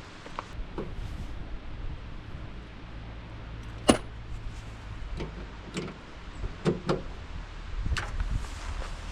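Scattered light clicks and knocks of small plastic trim clips and parts being handled, with one sharp click about four seconds in, over a steady low rumble.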